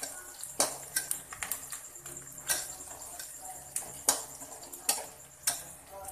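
Metal spatula clinking and scraping against a metal kadhai while onions are stirred in oil: irregular sharp clicks and scrapes, about one a second.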